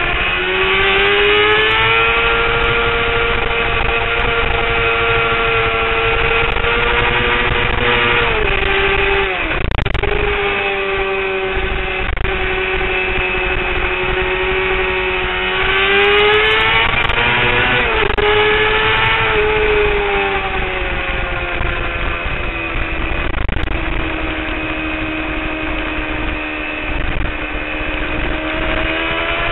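Honda CBR600RR's inline-four engine heard onboard at high revs, held fairly steady through a long corner. Twice the note dips briefly and recovers, and it climbs again near the end.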